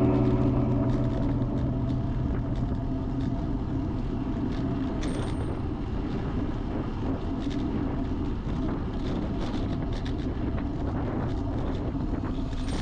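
Steady rush of wind and tyre noise from a road bike being ridden, with faint scattered ticks.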